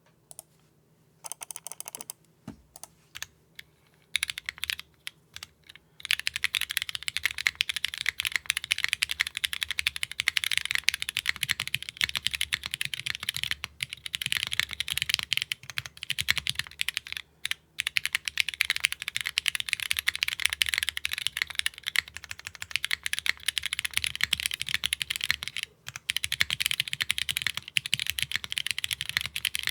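Mechanical keyboard with Cherry MX2A Black switches, built plateless with GMK keycaps, being typed on. A few separate keystrokes come first, then fast continuous typing from about six seconds in, with a few brief pauses.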